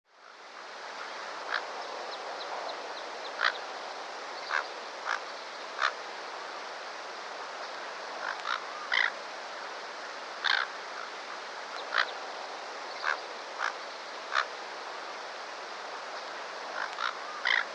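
Rainforest ambience fading in: a steady hiss of background sound with short, sharp animal calls, frogs or birds, sounding at irregular intervals, about fifteen of them.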